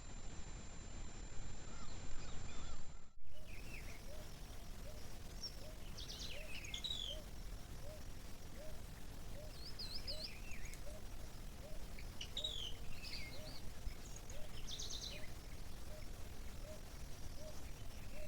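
Birds chirping and trilling in short high calls, over a steady series of short low calls repeating about twice a second. The sound cuts out briefly about three seconds in.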